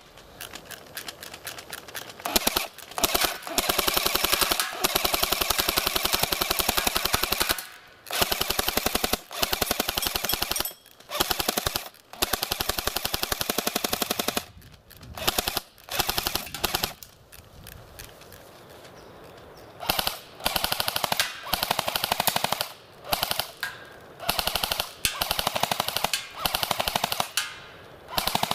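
Automatic gunfire in repeated bursts of rapid, evenly spaced shots. The longest bursts run about four seconds; the later ones are short, with brief pauses between them.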